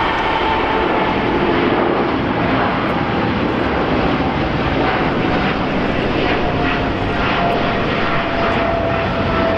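Jet engines of a Boeing 777 freighter at takeoff power as it climbs out: a loud, steady jet noise with a thin whine slowly dropping in pitch.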